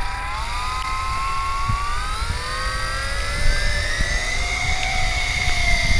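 JJRC H26W quadcopter's four motors and propellers spinning up for takeoff: a whine that rises steadily in pitch for about four seconds, then holds steady.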